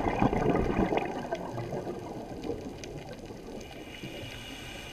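Underwater sound through a GoPro housing: a loud burst of bubbling, typical of a scuba diver's exhaled regulator bubbles, that fades over the first couple of seconds into a steady low rumble with a few faint clicks.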